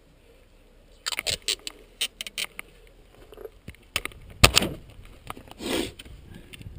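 Handling noise in a car boot: a run of sharp clicks and knocks starting about a second in, a loud thump about halfway, then a brief rustle, as the plastic hull of an RC boat is lifted out from among bags and packaging.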